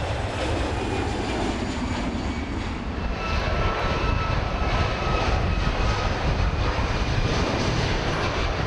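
Boeing 737 MAX 9's twin CFM LEAP-1B turbofans at takeoff power as the airliner accelerates down the runway: a steady jet rush with a thin high whine over it, growing louder about three seconds in.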